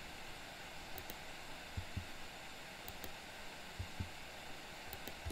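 Faint clicks and soft taps from a computer keyboard and mouse, coming in pairs about every second, over a steady microphone hiss.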